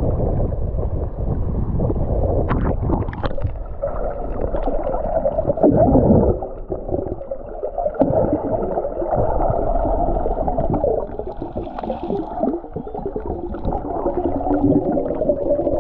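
Muffled underwater sound of water movement and bubbles gurgling, with scattered small clicks, heard dull and bass-heavy as through a camera housing under the surface.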